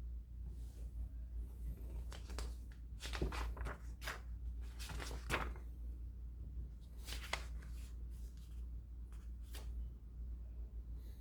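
A run of short, irregular rustles and clicks of something being handled, like paper being shuffled or moved, over a steady low hum.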